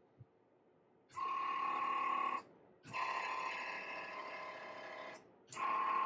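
Motorized marine searchlight's pan and tilt gear motors running in three bursts, a steady-pitched whine: about a second and a half, then a longer run of over two seconds that slowly fades, then a short run near the end. A faint low thump comes just after the start.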